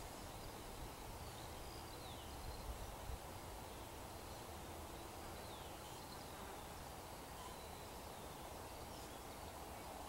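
Faint outdoor ambience: a steady background hiss with a few short, falling bird chirps scattered through it.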